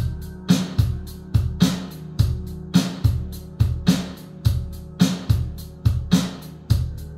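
Pair of B&W DM330 2½-way closed floorstanding loudspeakers playing a drum-driven song with bass and guitar: steady drum hits about twice a second over a continuous bass line, heard in the room.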